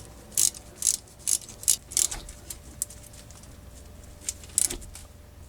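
Socket ratchet clicking in short runs as the brake caliper bolts are tightened, about two sharp clicks a second at first, then a few scattered clicks.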